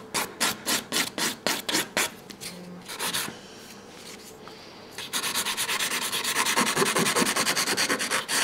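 Hand nail file rubbing back and forth over a hardened builder-gel nail as it is shaped to a point, at about five quick strokes a second. The filing stops about three seconds in and resumes nearly two seconds later as faster, closer-spaced strokes.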